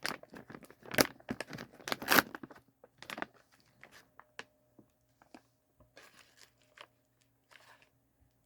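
A snack bag being torn open and crinkled, with loud tearing and rustling for the first two seconds or so, then lighter crinkles and clicks.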